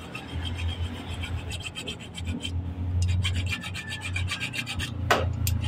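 A flat-bladed hand tool scraping around the flared metal end of a radiator bypass tube in a run of short rasping strokes, with two sharp metal clicks about five seconds in. A steady low hum runs underneath.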